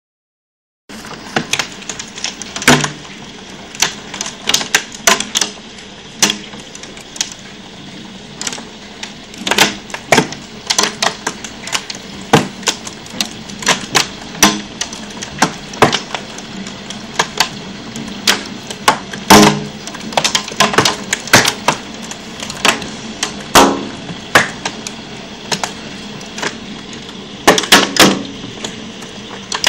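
Heavy hail falling: a steady hiss with many sharp, irregular clicks of hailstones striking close by.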